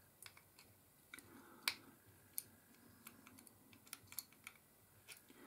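Faint, irregular small clicks and taps of the metal side cover of a Shakespeare 2700 spinning reel being worked onto the reel body; the cover does not yet snap in flat. The sharpest click comes a little under two seconds in.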